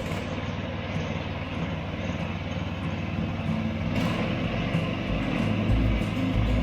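Engine of a home-built zero-turn ride-on lawn mower running steadily.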